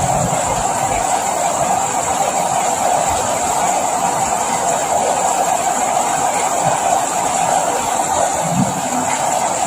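Steady rain, an even hiss that doesn't let up.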